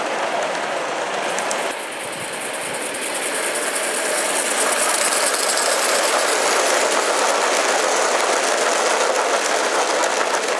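Gauge 1 model train running past on garden track: a steady, dense clatter of wheels on the rails. About two seconds in the sound cuts to a passing rake of coaches, which grows louder as they come close and then holds steady.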